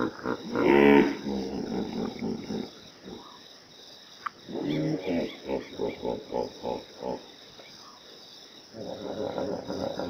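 Hippopotamus calling: a loud call about a second in, then a rhythmic run of short grunts, about three a second, from about four and a half to seven and a half seconds in, and another call building near the end.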